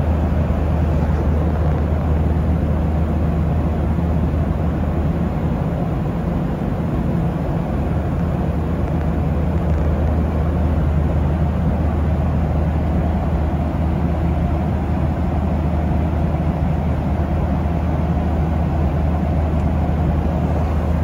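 Steady low rumble of a running vehicle, a constant droning hum with road-like noise that does not change.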